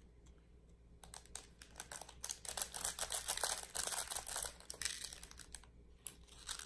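A small plastic bag crinkling and flower-shaped diamond painting drills clicking and rattling into a plastic sorting tray, a busy run of small clicks lasting a few seconds, with a few more clicks near the end.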